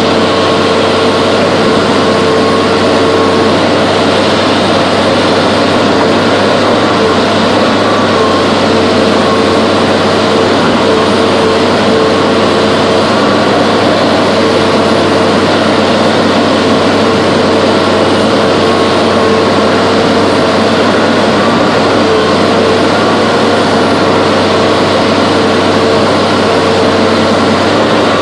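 Log loader's diesel engine running steadily, heard from inside the operator's cab, with a steady whining tone over it.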